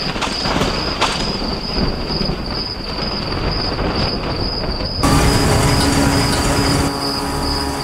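Threshing machine running, a dense steady mechanical din, with crickets chirping throughout. About five seconds in, the machine noise changes to a steadier hum.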